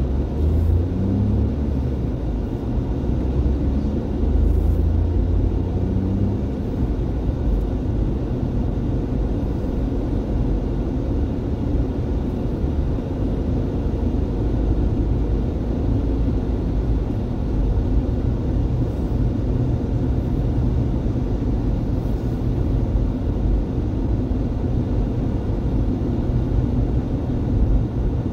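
Car cabin noise while driving: a steady low rumble of engine and tyres on the road, with the engine note climbing over the first few seconds as the car picks up speed.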